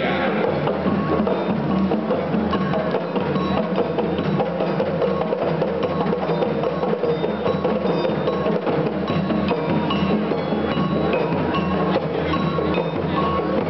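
Music played over the hall's loudspeakers, with a steady percussion beat of wood-block-like knocks and short repeated bell-like mallet notes.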